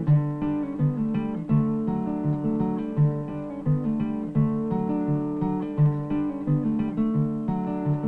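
Soundtrack music on acoustic guitar, chords plucked and strummed in a steady rhythm.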